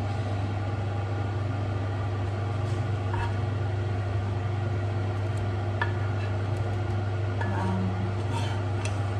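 Chicken pieces being added to masala paste in a pan and stirred, with a few clicks of a utensil against the pan and faint sizzling, over a steady low hum.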